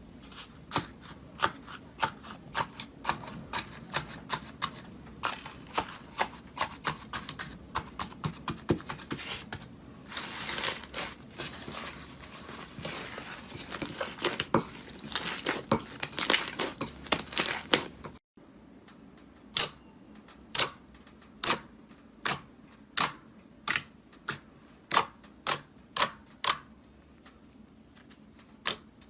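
Slime being squeezed and worked by hand: a dense run of crackles and clicks, then, after a brief drop a little past halfway, sharp single clicks about one a second.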